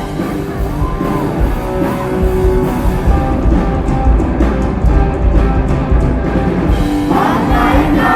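Live rock band playing loudly, with electric guitar, bass and drum kit. Singing comes in near the end.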